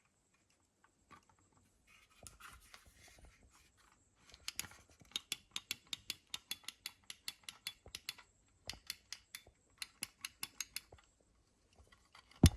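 Push button on an Otis Europa 2000 elevator panel being pressed over and over: a quick run of sharp plastic clicks, about four or five a second, with a short pause and one louder click near the end. Before the clicks there is a brief scraping as the panel is handled.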